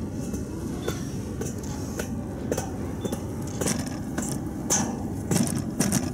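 Distant approaching train: a low steady rumble with sharp clicks scattered through it, coming more often in the last two seconds.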